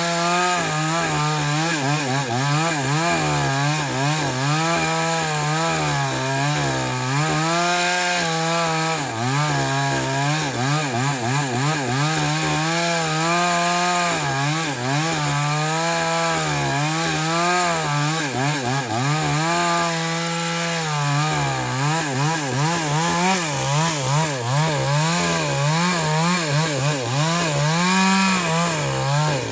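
JCK two-stroke chainsaw with a 22-inch bar running at high speed while cutting wood, its engine note wavering up and down all through as the load on the chain changes.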